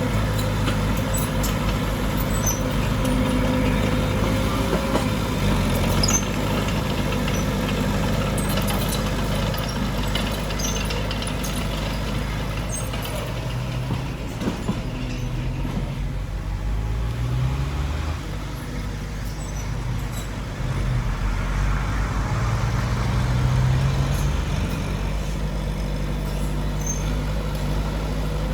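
Heavy diesel earthmoving machinery working, its engine running steadily and revving up in pitch twice in the second half.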